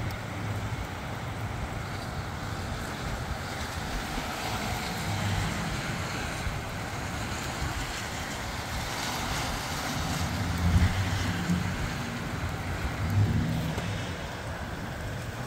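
Gusty wind blowing over the microphone with a steady rushing noise and low rumbling buffets, two stronger gusts coming in the second half.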